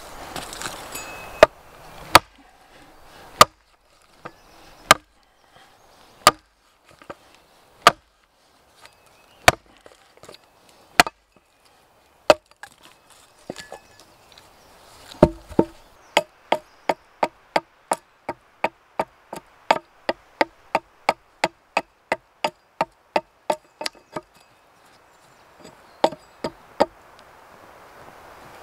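Axe chopping into the end of a wooden pole resting on a stump block, sharp wooden knocks. Single strokes come about every second and a half at first; about halfway through a heavier thud starts a quick run of lighter strokes, about three a second, that stops briefly near the end before a few more strokes.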